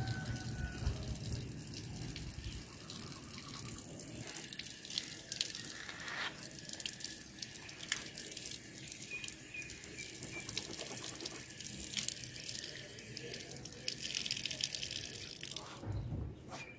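Water from an outdoor tap running and splashing onto a concrete wash area, with small irregular splashes and drips as someone rinses at it.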